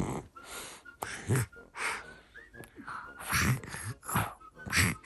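A young boy imitating snoring with his voice and breath: a string of about eight short, wheezy, rasping snore sounds in quick succession.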